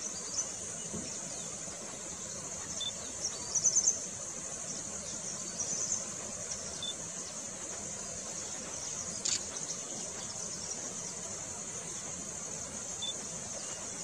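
A steady high insect drone, with two short clusters of quick high bird chirps about four and six seconds in.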